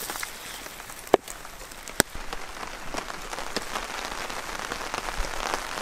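Rain falling hard, a steady hiss dotted with many small drop ticks, with two sharper clicks about one and two seconds in.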